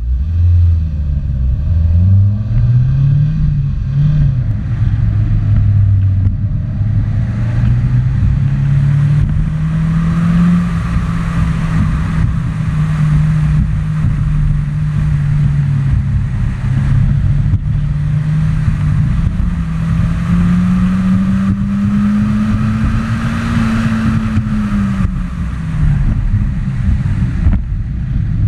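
Mazda Miata's four-cylinder engine accelerating hard away from the start. The revs climb and drop twice in the first few seconds, then hold high and rise slowly to a peak before falling away near the end as the car slows. Wind and tyre noise run under it.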